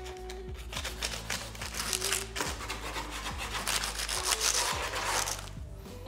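A long knife sawing back and forth through a baked sweet shortcrust pastry slice, a quick run of rasping scrapes that stops about a second before the end.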